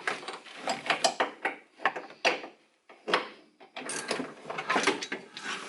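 Socket ratchet wrench clicking in quick spells with short pauses, working a 5/8-inch nut on the upper seatbelt anchor.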